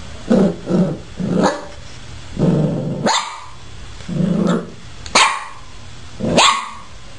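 Puppy growling and yapping at its own reflection in a mirror: low short growls mixed with several sharp, high yaps, about eight outbursts in all.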